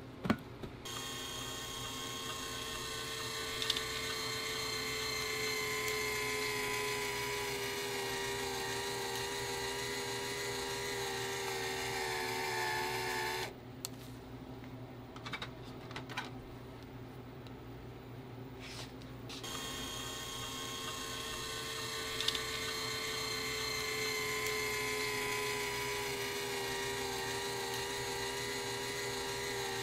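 Electric motor of an ice cream noodle extruder running with a whine that sinks slowly in pitch as it presses out the noodles. It stops about halfway through, leaving a few light clicks for several seconds, then starts again and sinks once more.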